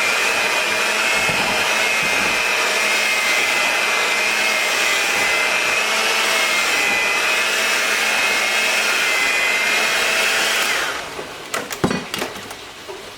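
A small electric appliance motor running at a steady high whine, then switched off about 11 seconds in, followed by a few clicks and knocks.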